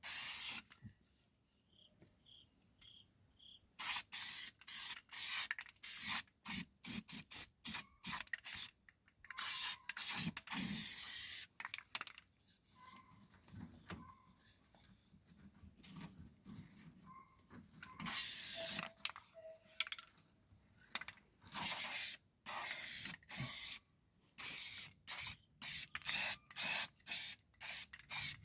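Aerosol can of rubberized black undercoating spraying in many short hissing bursts and a few longer ones about a second each, with crickets chirping faintly in the background.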